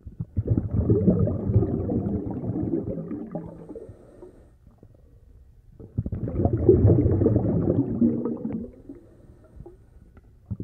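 Tap water running and splashing into a sink while hands are washed under it, in two spells with a short quieter break between them.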